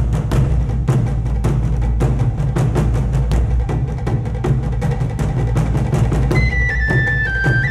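Background music: a fast, steady drum and percussion beat over a low bass, with a high melody line coming in about six seconds in.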